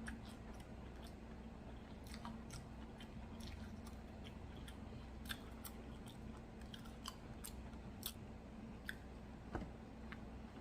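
Close-miked chewing of a fried chicken and waffle sandwich: quiet, scattered crisp mouth clicks and crunches, over a faint steady hum.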